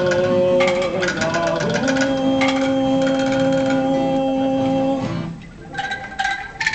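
Angklung ensemble playing: bamboo angklungs shaken in a fast rattling tremolo, with a long held note through the middle. The music thins out briefly about five seconds in, then the angklungs come back in.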